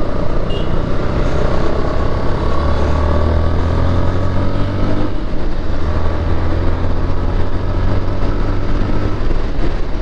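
Motorcycle engine running under way as it is ridden, heard from the rider's helmet with road and wind noise. The low engine note holds steady apart from a brief shift about halfway through. The bike has just been serviced with new engine oil and runs smooth.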